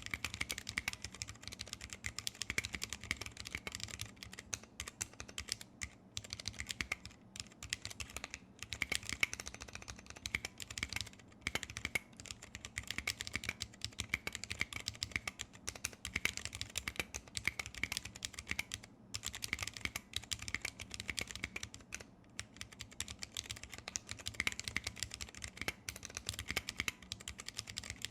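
Continuous fast typing on a 60% custom mechanical keyboard with vintage brown Alps switches lubed with PTFE: rapid, irregular key clicks and clacks with brief pauses between bursts.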